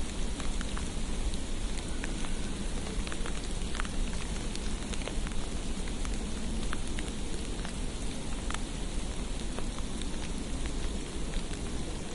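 Precipitation falling on a street: a steady hiss with many small scattered ticks over a low rumble, the patter of wet snow landing on surfaces.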